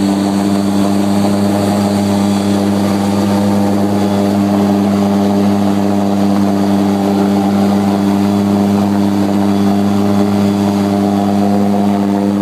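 Small propeller plane's engine droning steadily, heard from inside the cabin on the landing approach.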